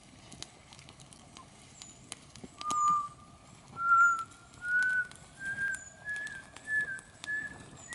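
A person whistling a run of held notes, each one a step higher than the last, starting about three seconds in. Faint crackling from a campfire underneath.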